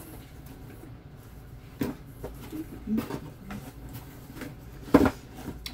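Rummaging and handling of boxed makeup items, with a few sharp knocks and clatters, the loudest near the end, and a little soft mumbling in between.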